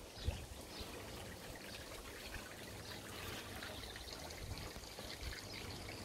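Water trickling steadily, with a soft low bump just after the start.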